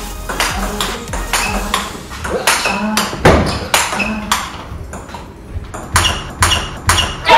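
Large-ball (44 mm) table tennis rally: the ball clicks sharply off the rackets and the table in a quick, steady alternation of hits and bounces.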